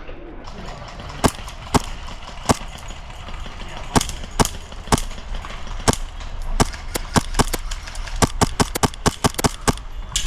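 Airsoft gunfire: sharp single cracks, scattered at first and coming fast and close together in the last few seconds.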